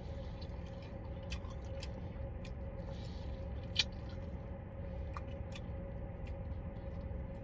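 A person biting and chewing a fried chicken wing whose crust is soft rather than crispy, with scattered small wet clicks, one sharper about four seconds in. A steady low hum of the car interior runs underneath.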